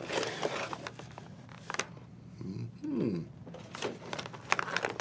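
Cardboard blind box and its plastic insert being handled and opened: a rustle of packaging at first, then a few light clicks and taps. A short hummed voice sounds in the middle.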